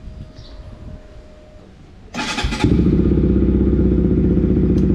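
Bajaj Pulsar RS200's single-cylinder engine started on the electric starter: a brief crank about two seconds in, then it catches and idles steadily.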